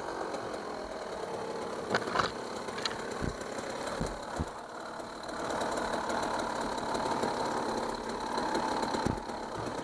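Enduro dirt bike engine idling steadily, with a few short knocks about two to four seconds in and again near the end.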